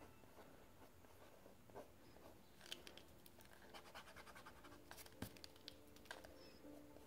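Faint scratching of a drawing tool on sketchbook paper: a run of quick, short strokes, busiest from a few seconds in until near the end.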